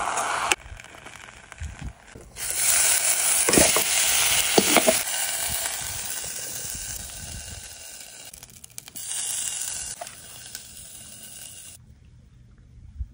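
Birria taco (consommé-dipped corn tortilla with birria beef) sizzling as it fries in a pan, with a few short knocks of metal spatula and tongs. The sizzle comes in cut-together stretches, loudest a few seconds in, then fades away about a second before the end.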